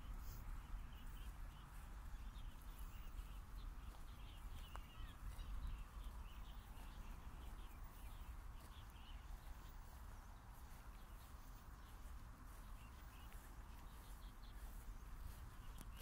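Faint park ambience: scattered birds chirping over a steady low rumble and hiss, with soft footsteps of sneakers on grass.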